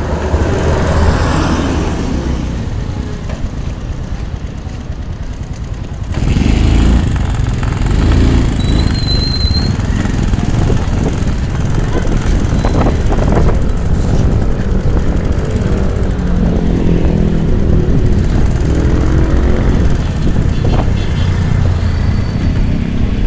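A motor scooter running while it is ridden along a city street, its engine mixed with passing traffic noise; the rumble gets louder about six seconds in.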